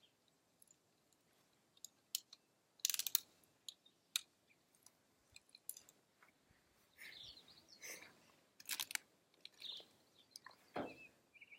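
BB gun shooting: a cluster of sharp, crunchy clicks about three seconds in, then a single sharp click a second later.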